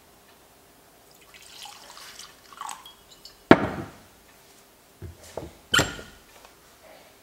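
Whisky pouring from a glass bottle into a tumbler with a soft gurgle, then the bottle set down on a wooden chest with a sharp knock about three and a half seconds in. A couple of lighter knocks and a ringing glass clink follow near six seconds.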